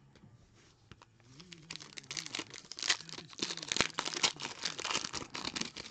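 Crinkly wrapper of a 2019 Limited football card pack being torn open by hand, starting about a second and a half in, with dense crackling and ripping.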